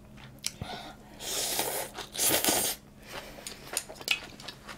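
Mouth noises while eating: two loud, airy bursts of about half a second each with a short gap between, among small clicks.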